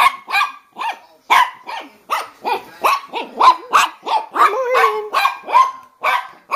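Chihuahua barking at a sleeping child to wake him: a fast run of short, high-pitched barks, about two or three a second, with one longer, lower bark near the middle.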